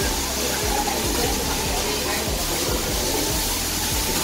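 Diced chicken sizzling and steaming on a hot teppanyaki griddle, a steady hiss with background restaurant murmur.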